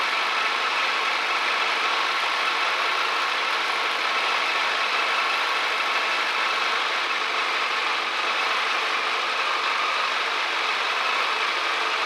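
Kawasaki Versys 1000 LT's inline-four engine idling steadily in neutral at a little over 1,000 rpm.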